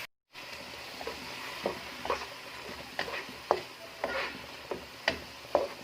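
Ground meat sizzling in a pan with tomato and spices, while a spoon scrapes and knocks against the pan about twice a second as it is stirred.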